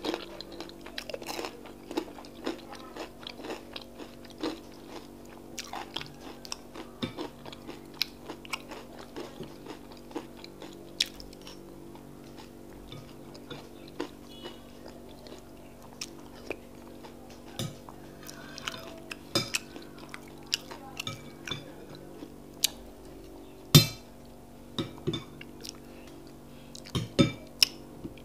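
Close-miked chewing and wet mouth sounds of a person eating akara (fried bean cakes) and custard, with many small smacks and clicks. One sharp clack late on is the loudest sound. A steady low hum runs underneath.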